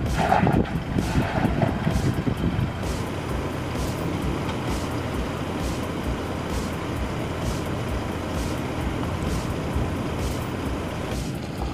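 Toyota Fortuner SUV engine running at low speed as the vehicle crawls slowly over an off-road twist track: a steady rumble.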